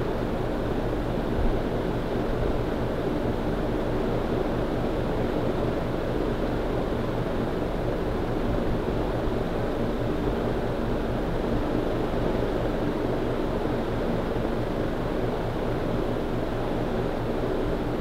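Casablanca Ventura II 42-inch ceiling fan with short Saturn blades, running steadily at speed: an even whoosh of moving air with a faint low motor hum.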